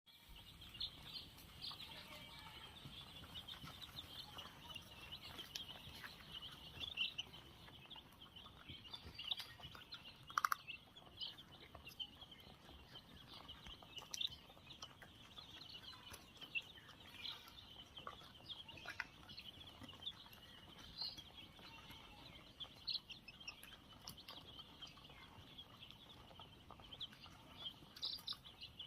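Many five-day-old chicks peeping together in a dense, continuous high-pitched chorus, with a brief sharp knock about ten seconds in.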